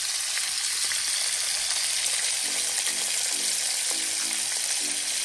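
Seasoned chicken pieces sizzling steadily as they shallow-fry in hot oil in a pan. Faint music comes in about halfway through.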